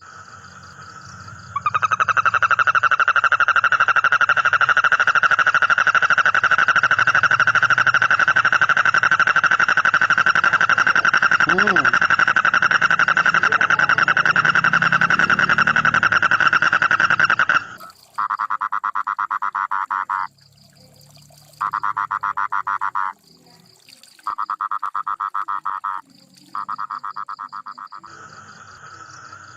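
A frog calling with one long, steady, rapidly pulsed trill, then four shorter trills in bursts with short gaps between them.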